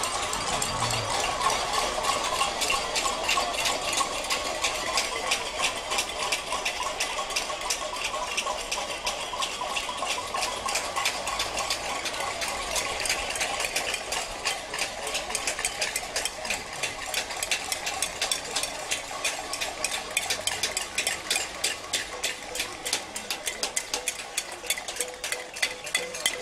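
Protest crowd banging pots and pans (a cacerolada): a dense, continuous clatter of many metal strikes that grows thicker in the second half.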